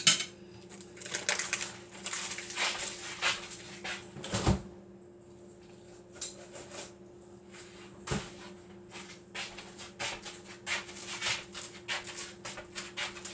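Butter melting in a hot frying pan, spitting and crackling in short irregular bursts, with two sharp knocks of a utensil or pan about four and eight seconds in.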